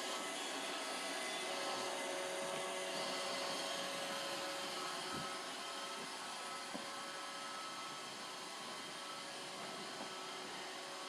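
Roomba robot vacuum running steadily, a continuous whirring noise with a faint steady hum in it. A couple of light knocks come around the middle, and it gets slightly quieter in the second half.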